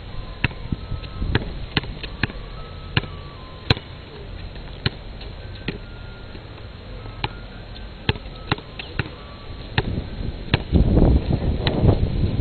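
Basketball being dribbled on outdoor asphalt: single sharp bounces at an uneven pace, roughly one every half second to a second. A louder low rumbling noise comes in near the end.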